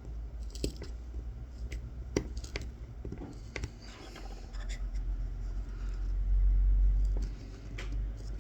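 Kolrosing knife scoring fine lines into a wooden coffee scoop: small crunchy cuts through the wood fibres with scattered sharp ticks. A louder low rumble comes about six to seven seconds in.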